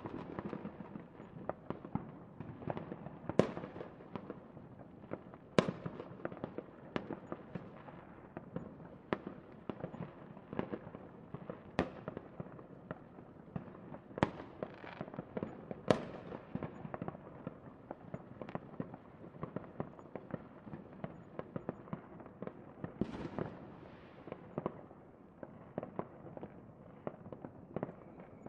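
Fireworks display going off in quick succession: a dense run of bangs and crackles, with sharper, louder reports every few seconds.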